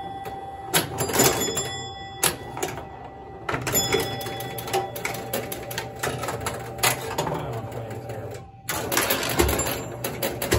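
A 1968 Williams Lady Luck electromechanical pinball machine in play: rapid clicking and clacking of its relays, score reels and playfield switches as the ball scores, with chime tones ringing out among the clicks. The clatter dips briefly near the end, then starts again.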